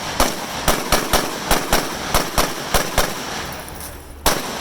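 Rifle shots on a firing line, about a dozen sharp cracks in quick, irregular succession, each with a short echo, with a pause of about a second near the end before two more shots.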